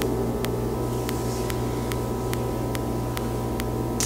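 Steady electrical mains hum with a faint, evenly spaced ticking of about two to three ticks a second.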